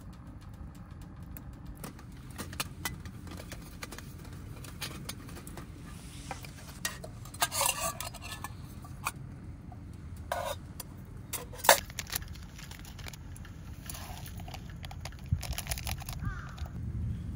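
Cookware being handled: scattered clinks and knocks, with one sharp loud click about twelve seconds in, over a steady low rumble.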